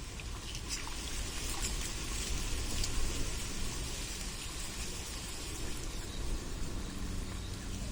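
Steady outdoor water ambience at a pond: an even hiss with scattered small ticks and a low rumble underneath.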